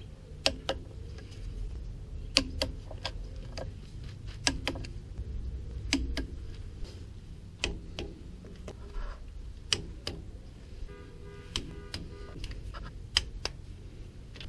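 Torque wrench tightening the differential cover bolts to 18 foot-pounds: sharp clicks every second or so, often two close together. Each click marks a bolt reaching its set torque.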